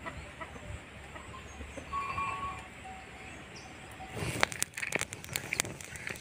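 Open-air ambience with a low wind rumble and a few faint bird calls. From about four seconds in, the dry sticks of a freshly lit wood fire crackle and snap in quick, sharp clicks.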